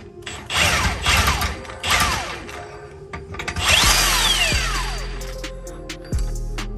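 Cordless impact wrench loosening a rear differential mount nut in several short bursts of hammering, its motor whining down in pitch each time the trigger is released.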